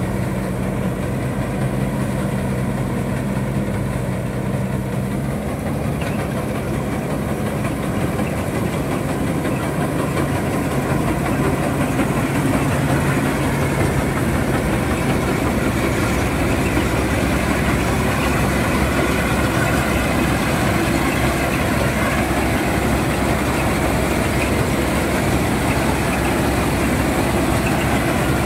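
Tractor-mounted combine harvester running, powered by a Mahindra Arjun Novo 605 DI tractor: a steady engine hum under the noise of the threshing machinery. The sound turns denser and a little louder around halfway through.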